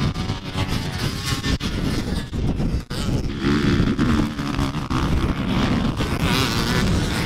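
Dirt bike engine running hard over a rough rumbling noise. Its pitch rises and falls as it revs from about halfway through, with a brief drop in loudness just before.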